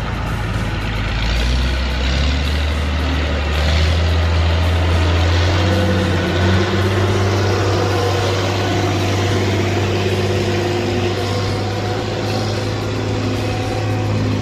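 Heavy machine's engine running steadily under load, with a low even hum whose pitch shifts slightly about five or six seconds in.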